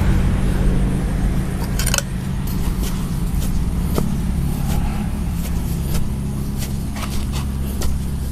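A steady low engine-like drone runs throughout. Over it come scattered scrapes and knocks of a small hand hoe working loose garden soil, sharper about two and four seconds in.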